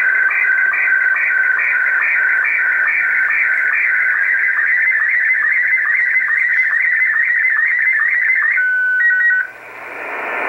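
Slow-scan television (SSTV) image signal received over shortwave radio: a rapidly warbling stream of tones with a short regular sync pulse about twice a second. Near the end it gives way to a few brief steady beeps, cuts off, and leaves rising shortwave static hiss.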